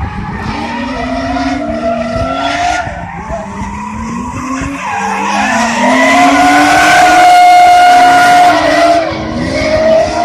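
Drift car sliding, its engine revving up and down with tyres squealing. It is loudest in a long steady high squeal about six to nine seconds in.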